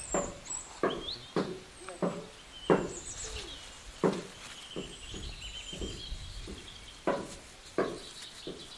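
A steady series of dull knocks, about one every two-thirds of a second, with birds chirping and twittering over them.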